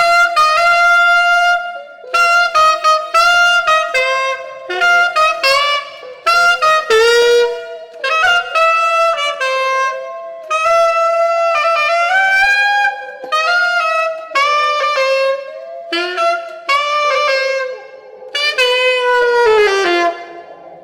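Solo saxophone playing a jazz-like run of short notes in several phrases with brief breaks, ending with a falling slide in pitch near the end.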